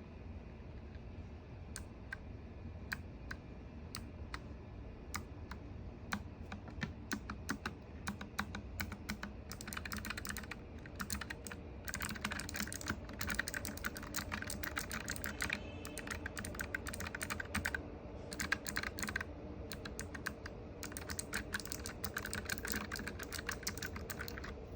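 Typing on a NuPhy Air75 low-profile mechanical keyboard with Gateron low-profile 2.0 clicky switches. Slow, scattered keystrokes at first, then fast runs of typing from about ten seconds in, with short pauses between bursts, over a steady low hum.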